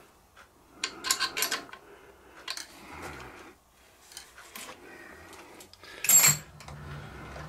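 Metal clicks and scrapes of a small steel spanner working the nuts on an aluminium sensor bracket, in short clusters. A louder clatter comes about six seconds in, and a low steady hum starts with it.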